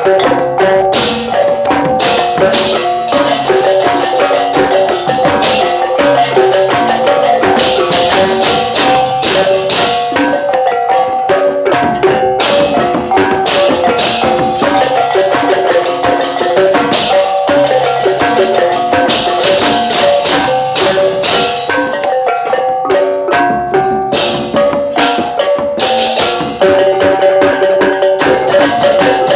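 Balinese gamelan ensemble playing: keyed metallophones struck with mallets in fast, dense runs of ringing notes, with frequent sharp, crisp strikes over them.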